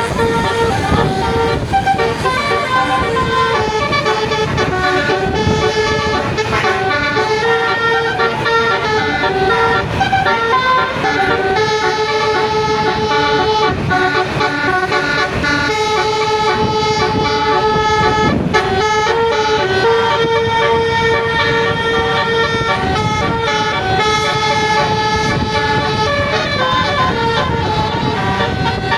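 Basuri multi-tone bus horn playing a slow melody: long held notes that step from one pitch to the next with short breaks between them.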